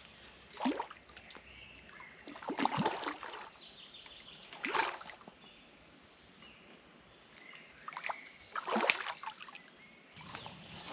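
Water splashing in about five separate bursts, each a second or less, over a faint steady background hiss.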